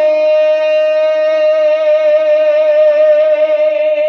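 A man's voice holding one long, high sung note through a microphone, steady with a slight waver, a sustained vowel in a naat recitation.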